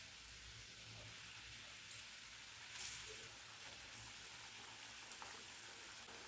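Faint, steady sizzling of a watery mustard-tomato gravy simmering in a metal kadai, with a brief louder hiss about three seconds in as fried pomfret pieces are slipped into it.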